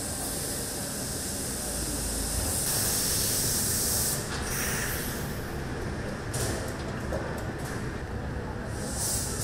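Steady rushing hiss of ventilation and air-conditioning in a large hall. The hiss turns duller about four seconds in and brighter again near the end.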